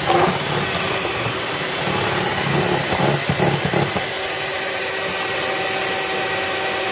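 Electric mixer running steadily, its twin beaters whirring through egg-and-oil cake batter. There is an uneven low rattle for the first four seconds, then a smoother steady whine.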